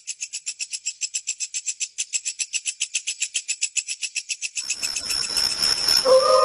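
A spooky sound-effect track: a high, rapid pulsing trill, about ten pulses a second, that grows louder. Near the end a rising hiss swells in and a steady eerie tone begins.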